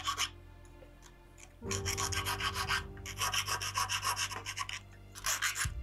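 Thin hand file rasping along the edge of a small brass-sheet flower petal in quick, short back-and-forth strokes, smoothing the cut edge. The filing stops after the first moment, resumes about a second and a half in, and breaks off briefly near the end.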